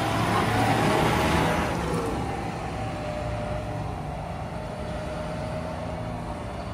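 Large John Deere tractor's diesel engine running as it pulls away and drives off, loudest over the first couple of seconds and then fading as it moves away.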